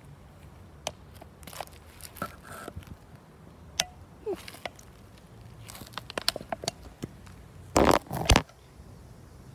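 Handling noise on a phone's microphone: scattered clicks, knocks and rustling, then two loud rubbing bursts near the end as the phone is picked up and tilted.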